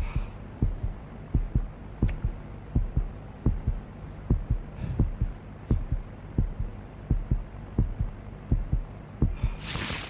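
Heartbeat sound effect: low double thumps, lub-dub, about every three-quarters of a second over a steady low hum. Just before the end a short, loud rush of hissing noise cuts across it.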